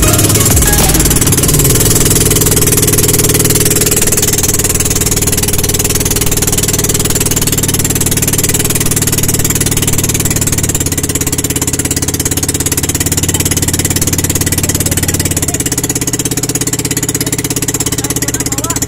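Engine of a motorized outrigger boat (bangka) running steadily while under way, its note shifting slightly about halfway through.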